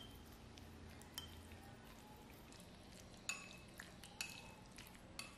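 Wooden chopsticks stirring marinated pork slices in a ceramic bowl: faint, irregular light clicks as the chopsticks knock the bowl, about half a dozen in all, the clearest a little past three and four seconds in.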